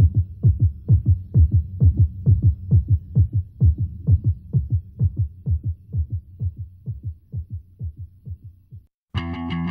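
Soundtrack music: a deep pulsing beat, a little over two pulses a second, that fades away and stops near the end. A sustained guitar chord then comes in.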